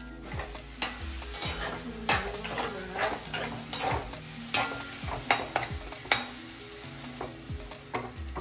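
A spoon scraping and knocking against a kadai as ground coconut is stirred in it. Irregular strokes with sharp clicks, a couple of times a second.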